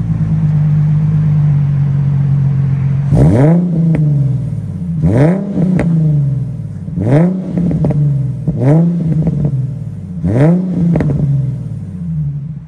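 Nissan 350Z HR's V6 running through a muffler-less ISR blast-pipe exhaust with a resonator and stock cats. It holds a steady idle for about three seconds, then takes five quick throttle blips about two seconds apart, each revving up sharply and dropping back to idle.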